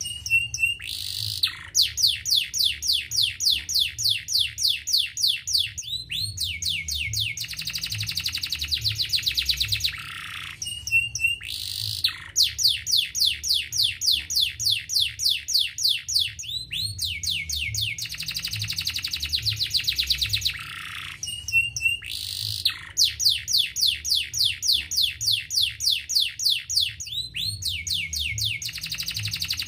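Domestic canary singing in long phrases of rapid, evenly repeated trills and rolling notes, broken by short pauses; the same song sequence comes round about every ten seconds.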